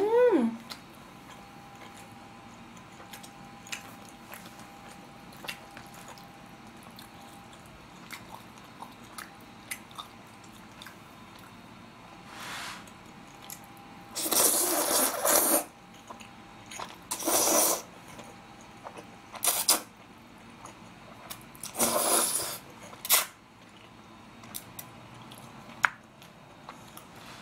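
Black-bean-sauce noodles (jjajangmyeon) slurped up in four or five slurps, the longest about halfway through, with faint clicks and chewing between.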